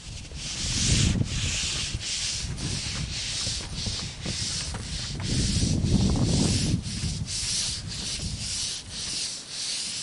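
Paint roller on a long pole spreading roofing glue over a wooden roof deck: rapid back-and-forth rolling strokes, about two a second, with a rasping, scraping hiss.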